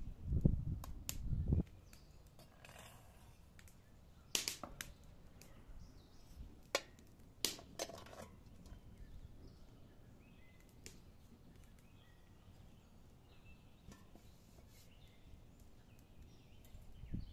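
Metal cookware being handled: dull low knocks as a large pot is moved and set down, then a few separate sharp clinks as a small steel steamer basket of peas is placed inside an aluminium cooking pot.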